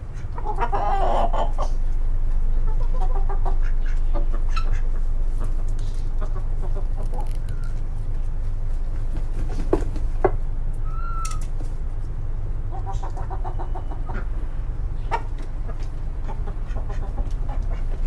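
Domestic chickens clucking on and off, several short runs of calls with a single higher call midway. A steady low rumble runs underneath, and a few sharp knocks come through.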